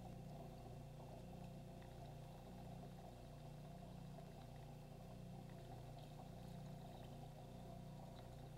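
Faint steady low hum, close to silence, with a few very faint ticks.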